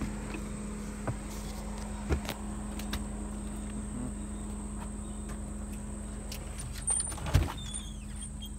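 Steady low mechanical hum with a few sharp clicks and knocks from the phone being handled, the loudest knock about seven and a half seconds in.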